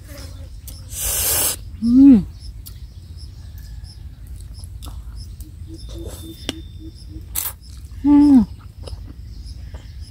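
Eating sounds: a spoon and fork clinking and scraping on a steel plate, a short noisy hiss of breath about a second in, and chewing. Two short wordless vocal sounds, one falling in pitch about two seconds in and another near the end, as she tastes the sour, spicy salad.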